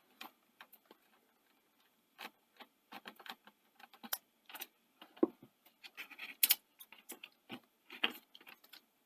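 Scattered small clicks and light metallic taps as a screwdriver and small parts are handled while the motor on a Betamax video recorder's deck mechanism is unscrewed and lifted off. They are sparse at first, then come more often from about two seconds in.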